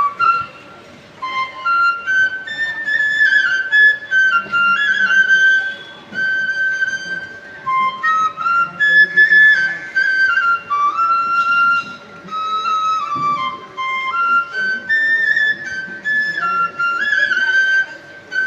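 Bansuri (Indian bamboo flute) playing a slow, sweet melody of held notes with small bends and slides between pitches.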